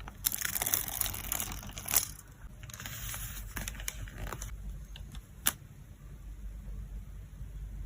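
Photocard packing materials handled by hand: light plastic and paper rustles and small clicks, busiest in the first two seconds, with one sharp click about five and a half seconds in.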